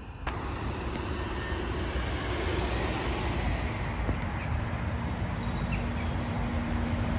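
Steady outdoor road-traffic noise: an even rumble and hiss of passing vehicles.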